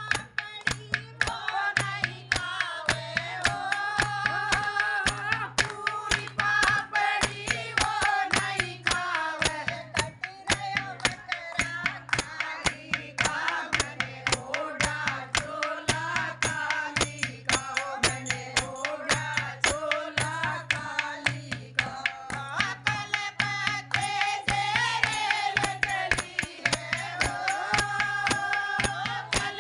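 Women singing a Hindi devotional bhajan together, keeping time with steady, rhythmic hand-clapping. A steady low hum runs underneath.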